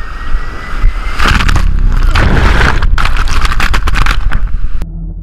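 Heavy ocean surf crashing over the rocks: loud rushing, spattering water buffeting the microphone, building about a second in and cutting off abruptly near the end.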